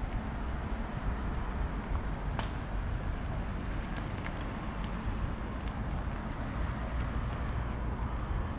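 Car driven in tight doughnuts at full steering lock under hard acceleration, engine running hard and tyres losing grip, over a steady low rumble of wind on the microphone. A few sharp cracks sound about two and a half, four and six seconds in.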